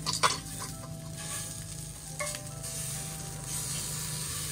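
Beef steak sizzling in a hot frying pan, a steady crackling hiss. A few sharp clinks, like utensils on the metal bowls, come near the start and again about two seconds in.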